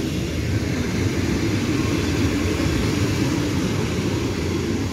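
Train of passenger coaches rolling past slowly on a shunting move, hauled by an SM42 'Stonka' diesel shunting locomotive: a steady rumble of wheels and the engine.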